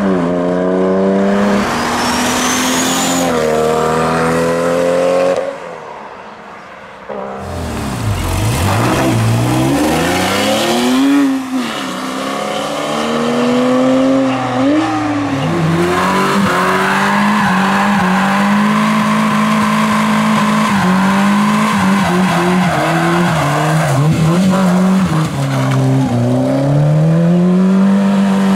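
A run of performance cars accelerating hard away one after another. First a BMW M4's twin-turbo straight-six pulls through the gears, its pitch climbing and dropping at each upshift. Then a Porsche 911's flat-six revs up, and in the last stretch a small hatchback's engine is held at high, wavering revs while its tyres squeal in a smoky burnout.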